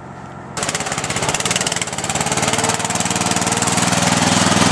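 Briggs & Stratton 16.5 hp single-cylinder engine of a modified Craftsman lawn tractor, running steadily as the tractor is driven. It starts abruptly about half a second in and grows gradually louder.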